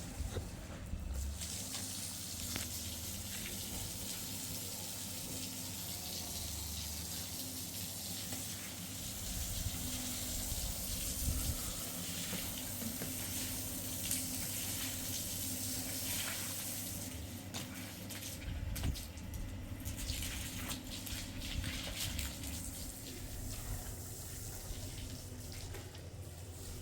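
Water running and splashing steadily, thinning out about two-thirds of the way through.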